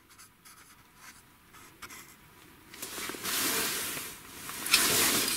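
Scratchy rustling and rubbing of clothing and a hand, starting about halfway in and growing louder near the end, as an angler's sleeve moves and he picks up a small ice-fishing rod.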